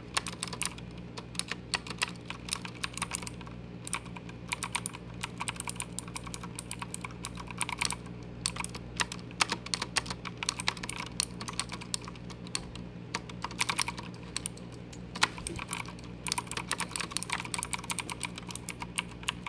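Keys of a Motospeed CK61 mechanical keyboard pressed in fast runs of clicks, with short pauses between the runs, recorded with the microphone right at the keyboard.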